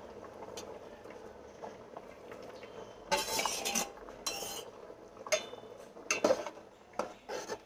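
A perforated steel skimmer scraping and clinking against a large aluminium pot as cauliflower florets and peanuts are tipped in, then a wooden spatula knocking in the pot. After a quiet start there are two scraping bursts about three and four seconds in, then a few separate knocks.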